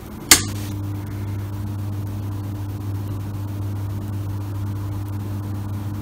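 A power switch clicks about a third of a second in, and the XYTronic LF-2900 soldering station's transformer starts a steady, slight hum that lasts to the end. The hum is normal transformer noise from the station when it is switched on.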